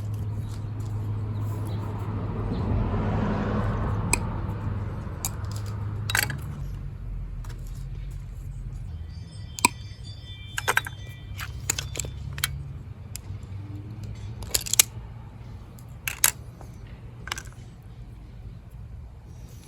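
Scattered sharp clicks and taps of small tools and wire parts being handled, over a steady low hum. A vehicle passes in the first few seconds.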